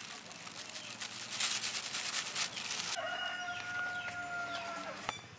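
Flour being shaken through a plastic sieve into a steel bowl, a dense rapid rustling loudest in the first half. About three seconds in, a rooster crows in the background, one long held note that trails off near the end.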